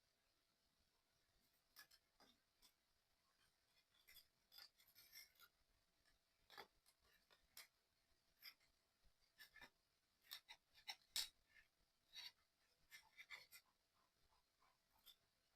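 Faint, irregular small clicks and light scraping as small puzzle-kit parts are handled and fitted together by hand.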